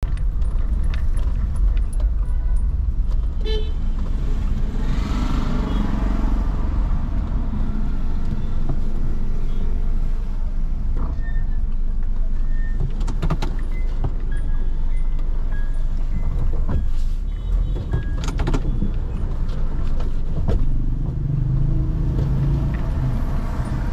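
Car driving slowly through street traffic, heard from inside the cabin as a steady low rumble. Short horn toots from the surrounding traffic and a few sharp clicks come through over it.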